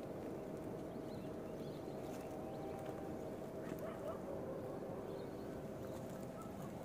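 Faint, distant loudspeaker sound from a village jagran (devotional night-long singing), heard as a few steady wavering tones over a constant background hiss.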